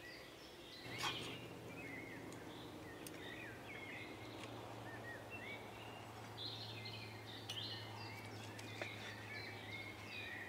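Birds singing with many short, quick chirps, with a few sharp clinks of a knife and fork against a metal skewer and a wooden cutting board. A faint steady low hum runs underneath from about a second in.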